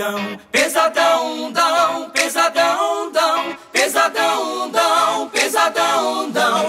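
Male a cappella vocal group singing wordless harmonies in several parts, in short, rhythmic syllables with no instruments.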